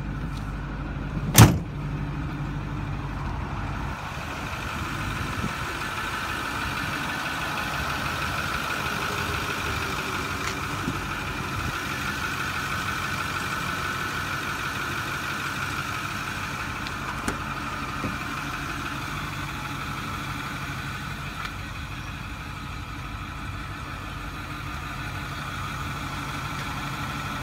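Ford Super Duty pickup truck's steady running noise, with one sharp bang about a second and a half in and a few light clicks later on.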